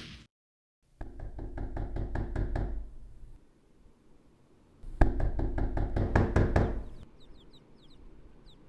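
Two bursts of rapid, rhythmic knocking, the first about a second in and the second about five seconds in, each lasting a couple of seconds.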